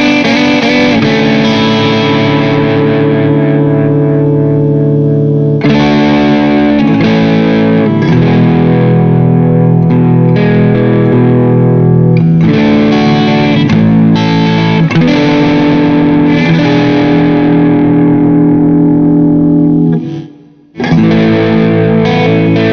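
Background music led by distorted electric guitar playing sustained chords, with a brief break about 20 seconds in.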